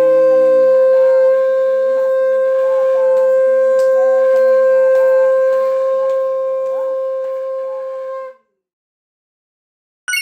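Conch shell (shankh) blown in one long, steady, held note at the close of an aarti, cutting off about eight seconds in. A short bright chime sounds at the very end.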